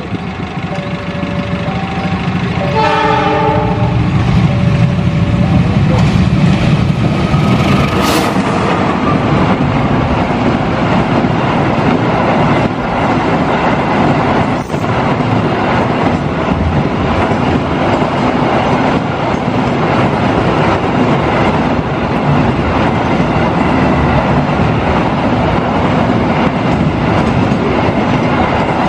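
Train horn sounding for the first few seconds, loudest about three seconds in, then a train passing close by with a steady loud rumble and its wheels clacking over the rail joints.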